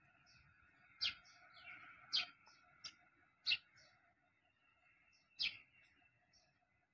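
Birds chirping: about five short, sharp chirps at irregular intervals about a second apart, over a faint steady drone.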